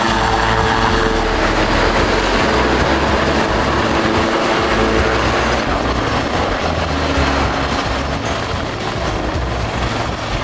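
Westland Lynx helicopters flying low, the rotor blades chopping fast and steadily over the steady tone of the turbine engines. The sound drops a little about six seconds in.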